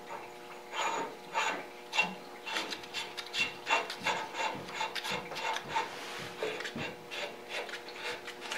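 Irregular scraping, clicking and rubbing of metal parts being handled on a surface grinder spindle, as a left-hand-threaded part is worked on, over a faint steady hum.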